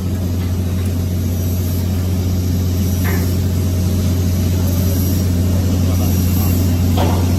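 Steady low machine hum from shop machinery, with two faint short scrapes or clicks about three and seven seconds in.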